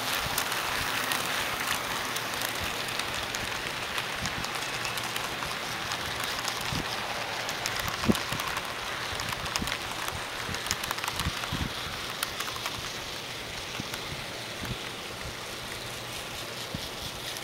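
Model passenger train led by Atlas SDP-35 diesel locomotives rolling past close by: a steady rushing of wheels and motors on the track with irregular clicks at rail joints, one sharper click about eight seconds in. The sound fades gradually over the last few seconds.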